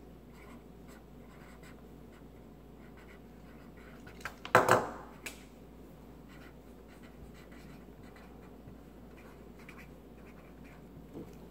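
Felt-tip marker scratching on paper as someone draws, in faint short strokes, with one louder knock about halfway through.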